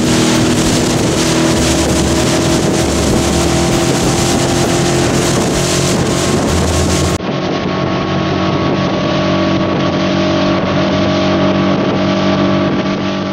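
Motorboat engine running steadily with the boat under way, several steady engine tones under a loud continuous rush of wind and water. About halfway through the sound briefly dips and turns duller.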